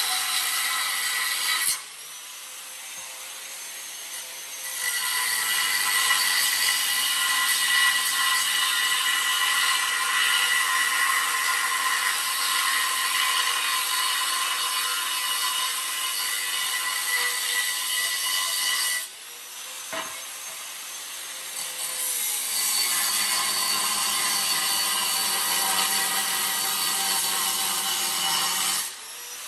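Angle grinder cutting into a steel rocket stove to notch it: a harsh, steady grinding noise. It breaks off about 2 s in and again about 19 s in, and in those gaps the grinder's free-running whine is heard before the cut resumes.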